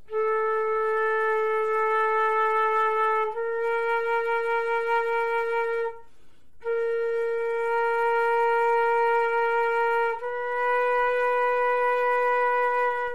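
Flute playing a slow line of long held notes that step a little higher, with a short break about six seconds in.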